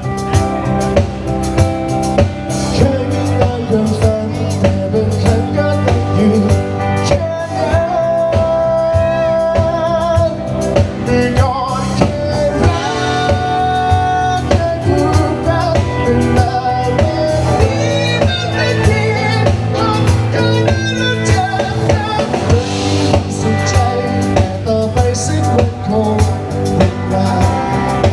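Live band playing a song: a singer over drum kit and guitar with a steady beat.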